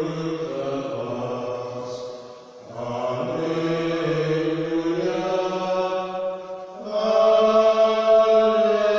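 A man's voice singing a slow liturgical chant in long held notes, with short breaks about two and a half and six and a half seconds in.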